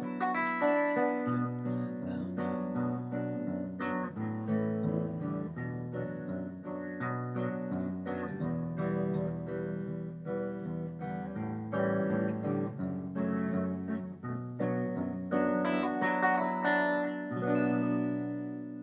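Acoustic guitar fingerpicked through a chord progression, the thumb picking bass notes on the low strings while the fingers pluck the D, G and B strings together. Near the end a last chord is left to ring and fades.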